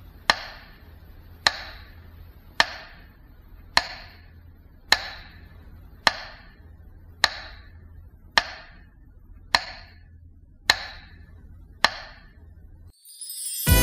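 Slow, even ticking: a sharp tick about every second and a bit, eleven in all, each with a short ringing tail, over a faint low hum. Loud music comes in right at the end.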